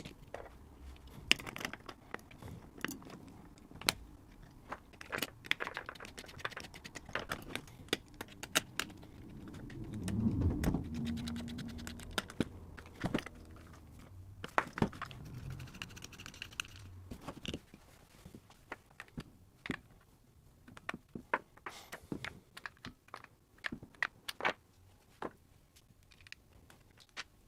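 Scattered small clicks, taps and scrapes of a Boss FZ-1W fuzz pedal's parts and screws being handled as the pedal is put back together. About ten seconds in comes a short, louder low rumble with a brief hum.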